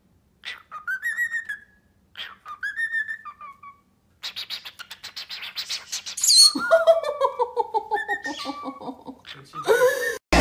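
A pet cockatiel and green-cheeked conure calling. Three short rising whistles come about two seconds apart, then a run of fast clicking chatter. A sharp high squeak comes about six seconds in, followed by a falling, pulsed call.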